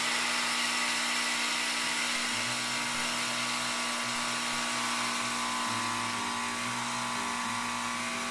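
Gaggia Classic espresso machine running its vibratory pump with a steady hum while steam hisses out of the group head. The boiler is still at steam temperature, so this is blowing off steam to cool the group head before pulling a shot.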